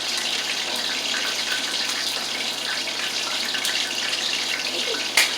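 Steady rushing water noise, a continuous hiss with faint crackles, broken by one sharp click near the end.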